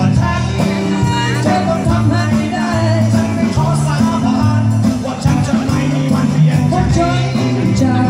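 Live band playing an instrumental passage: a bass line and drums under a melody line, with no singing.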